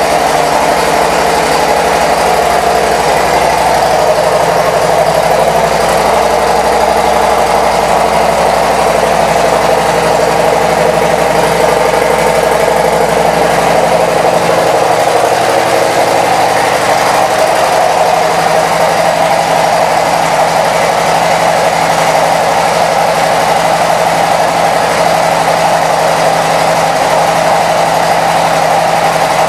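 Harley-Davidson Street Glide Special's V-twin engine idling steadily through a Vance & Hines exhaust.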